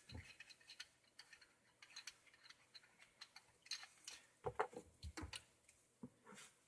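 Faint, scattered clicks and light taps of plastic pipe parts being handled as a PVC shut-off valve fitting is slipped onto a pipe, with a few soft knocks about four and a half to five seconds in.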